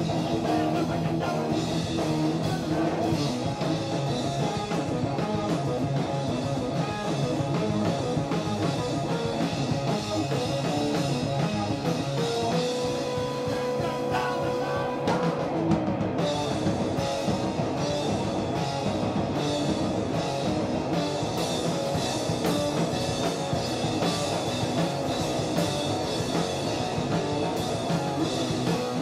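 Live rock music from an electric guitar and a drum kit played together, loud and continuous.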